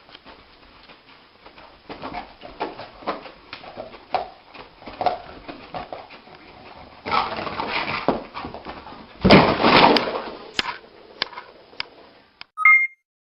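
A dog whimpering, with a run of short sounds and two louder noisy stretches around the middle. A short two-tone beep comes near the end.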